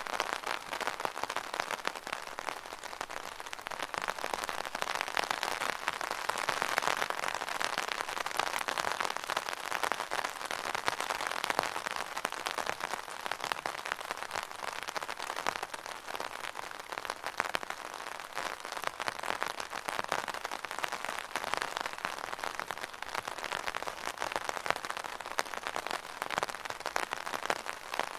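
Rain falling on an umbrella: a dense, steady patter of many small drop hits that swells and eases a little.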